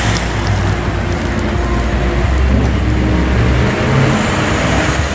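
Road traffic on a city street: cars driving past close by, a steady low engine rumble with tyre noise.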